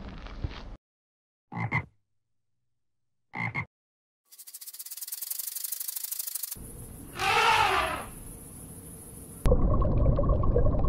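A string of separate animal sounds: two short croak-like calls a couple of seconds apart, then a long raspy buzz and a louder rasp. In the last second or so a steady rushing noise starts suddenly.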